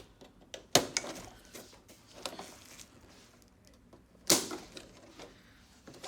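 Clicks, taps and two sharp knocks, the first about a second in and the second just past four seconds, from hands and tools working on the plastic and metal parts of an LCD television being taken apart.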